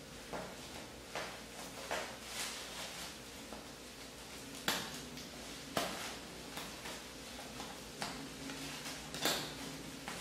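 Bubble wrap and plastic crinkling and rustling as they are handled and pulled at, with several sharp clicks scattered through, the loudest a little under halfway.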